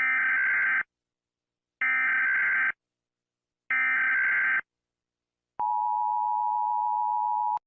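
Emergency Alert System tones: three bursts of buzzing digital data tones (the SAME header), each just under a second long, then about 5.6 s in the steady two-tone attention signal, held about two seconds before cutting off abruptly.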